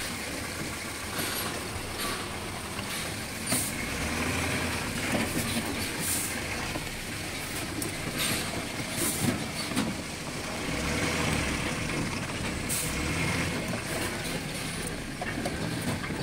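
Heavy truck's diesel engine running at low speed, heard from inside the cab as it crawls over a rough dirt road, with cab rattles and several brief hisses.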